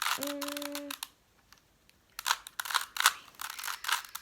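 Plastic 3x3 Rubik's cube being twisted, its layers clicking and clacking in quick runs of turns; the clicks stop about a second in and start again about two seconds in. A short hummed tone from the solver sits under the first clicks.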